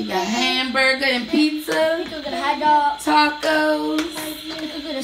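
A young child singing, with some long held notes.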